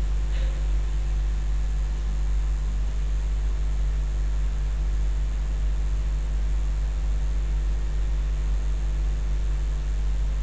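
Steady low electrical hum with evenly spaced overtones under a layer of hiss. It is the background noise of an open recording microphone, with no other sound.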